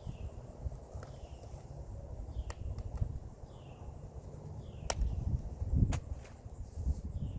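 A bird repeating a short falling chirp about once a second, over low rumbling handling noise, with a couple of sharp clicks about two-thirds of the way in.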